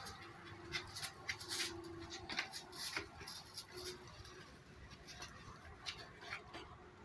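Puppies and kittens eating from a styrofoam food box and a plastic bag: faint, scattered crinkling, scraping and chewing clicks.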